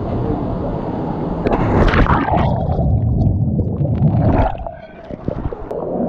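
Rushing stream water, then a splash about one and a half seconds in, followed by muffled underwater gurgling and sloshing as the microphone goes under the surface.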